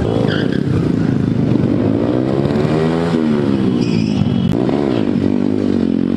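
Motorcycle engine revving during stunt-riding practice. Its pitch climbs to a peak about three seconds in, drops away, then rises again near the end.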